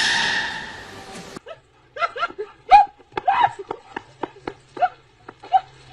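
A loud hiss with a faint steady tone that cuts off abruptly about a second and a half in, then a dog barking in short, high yips, two or three a second.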